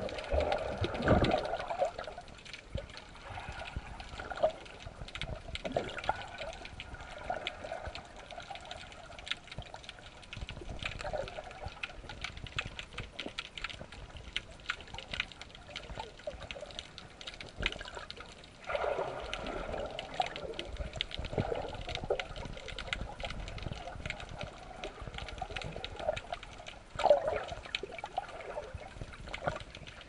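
Water bubbling and trickling, with many small clicks throughout and a few louder gurgling surges: one at the start, one about two-thirds through and one near the end.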